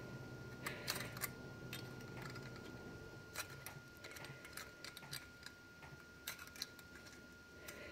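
Faint, irregular clicks and light metallic ticks of needle-nose pliers crimping the rim of a thin aluminium beer can, a squeeze at a time.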